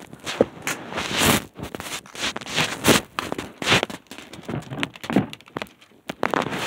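Crinkling and tearing of Hatchimals toy packaging being pulled open by hand, an irregular run of close rustles and crackles.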